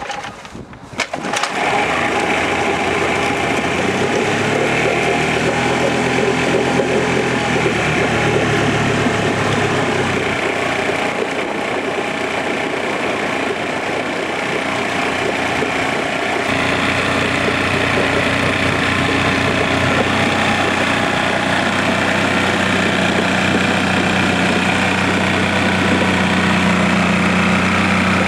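Johnson 35hp two-stroke outboard catching in its first second and then running, its leg in a tank of water. It runs unevenly at first, then settles into a steadier idle a little over halfway through.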